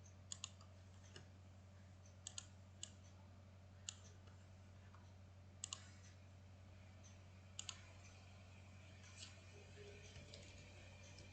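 Computer mouse clicking: a handful of sharp clicks a second or two apart, several in quick pairs, over a faint low hum.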